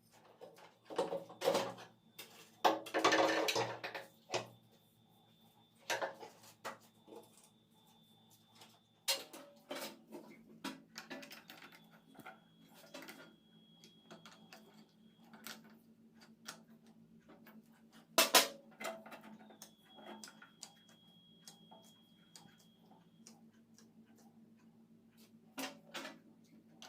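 Irregular clicks, knocks and clatter of hard objects being handled, densest in the first few seconds, with one sharp knock about two-thirds of the way through. A faint, high, steady tone comes and goes in stretches of a few seconds over a low hum.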